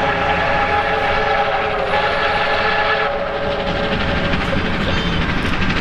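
R class steam locomotive's whistle sounding a long blast of several steady tones that cuts off about three seconds in, over the steady running noise of the steam train.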